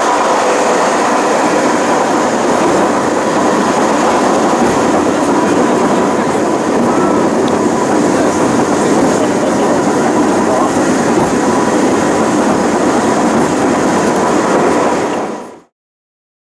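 Pilatus Railway cogwheel railcar running on its rack track, a steady rumble and rattle with a faint constant whine, cutting off suddenly near the end.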